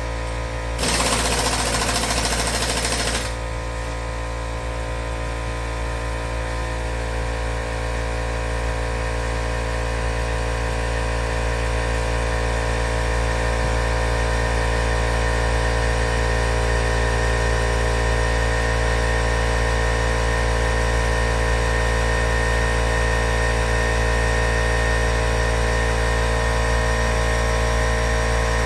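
Air impact wrench hammering on a seized engine bolt in two short bursts, then a steady mechanical hum of a motor running.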